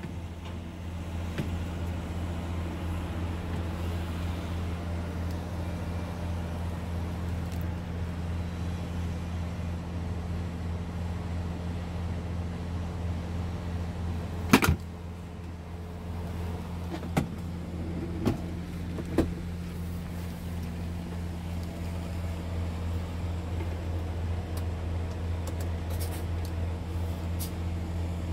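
Scania R truck's diesel engine idling steadily, heard from inside the cab. A sharp click comes about halfway through, and three lighter clicks follow a few seconds later.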